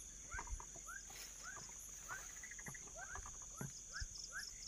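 Night chorus of wild animals: many short rising chirps from several callers, two or three a second, over a steady high insect buzz, with a few soft low knocks.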